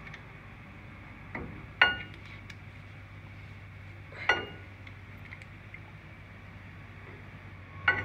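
Sharp metallic clinks of brake parts being handled as a new caliper is fitted with its banjo bolt and copper crush washers. The loudest clink comes about two seconds in and another a little after four seconds, each ringing briefly, with fainter taps around them over a steady low hum.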